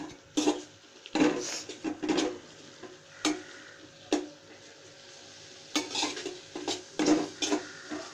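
A spoon scraping and knocking against an aluminium cooking pot as boiled pumpkin peel is stirred to cook off the last of its water. The clinks come in irregular bunches, with a short lull about halfway through.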